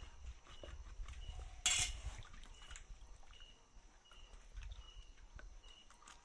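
A large tilapia being cleaned with a cleaver in a metal basin of water. A short, sharp sound comes about two seconds in as the blade works at the head and gills, followed by small wet clicks of hands pulling out the gills. Short high chirps repeat about every three quarters of a second in the background.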